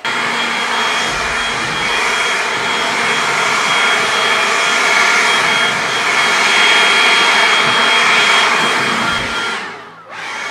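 Ryobi leaf blower running flat out: a steady rush of air with a high motor whine. It shuts off near the end, and a short burst follows just after.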